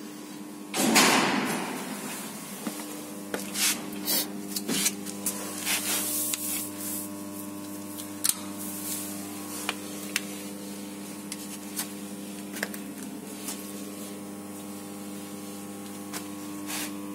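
A running AC-DC power supply with phase-angle (thyristor) control hums steadily, with an even buzzing tone and its overtones. A loud rustle comes about a second in, and scattered clicks and knocks from handling follow.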